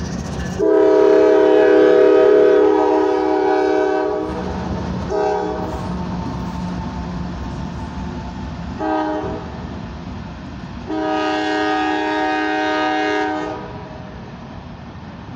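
Norfolk Southern diesel locomotive's air horn sounding a chord of several notes in the long, long, short, long pattern, the standard grade-crossing warning. A steady low rumble of the passing locomotives runs under it.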